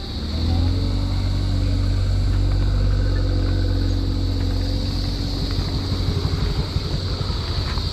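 A motor vehicle's engine running close by: its sound swells about half a second in, holds steady, then slowly fades from about four seconds in.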